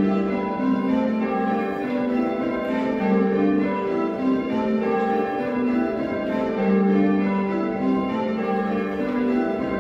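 A ring of six Whitechapel church bells, cast in 1978 with a tenor in G, rung full-circle in call changes: a steady, even succession of overlapping bell strikes heard from the ringing chamber.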